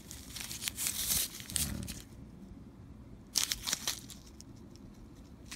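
Rustling and crinkling of hands handling a stretchy fabric wrist wallet, with a small paper silica gel desiccant packet taken out of its pocket. The sound comes in two spells: about two seconds at the start, then a shorter one about three and a half seconds in.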